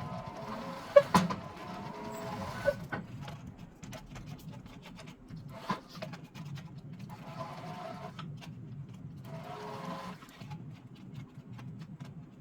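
Steel MIG welding wire being wound on a spool turning on a homemade bolt-axle jig. It makes an on-and-off whine over a low mechanical hum, with a few sharp clicks of the wire, mostly in the first three seconds.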